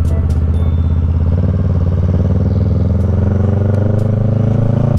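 Motorcycle engine running under way, its pitch climbing gradually from about a second and a half in as the bike speeds up.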